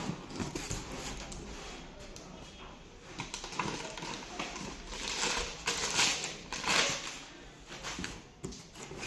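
Packaging being handled and opened: irregular rustling, scraping and clicking, with louder rustles about two thirds of the way through.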